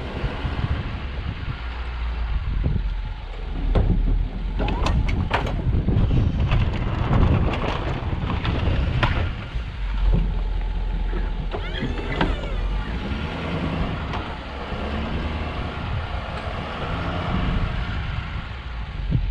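Snow-plow truck driving, with a steady engine and road rumble and a few sharp knocks or clatters about four to six seconds in.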